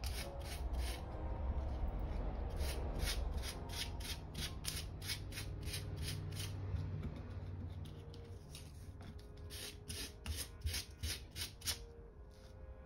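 Sandpaper scuffing the shiny side of a white inflatable-hot-tub repair patch by hand. Quick back-and-forth scraping strokes, about three a second, growing lighter in the last few seconds. The patch is being roughened so the adhesive will grip.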